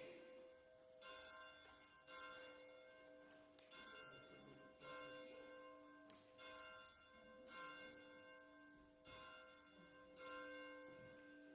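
Church bell tolling faintly, about eight evenly spaced strokes roughly a second and a quarter apart, each stroke ringing on into the next.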